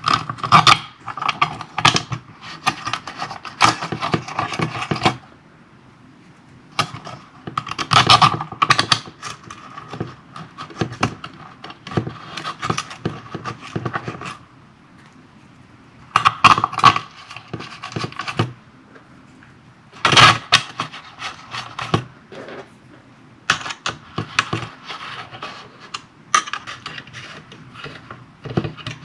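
Small screws being driven with a hand screwdriver to fix a wire finger guard onto a plastic computer-style fan and its 3D-printed housing. Bursts of metallic clicks, rattles and scrapes come with short pauses between them.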